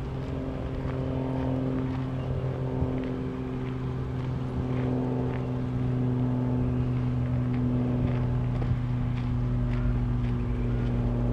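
A motor running steadily with a low, constant-pitch hum.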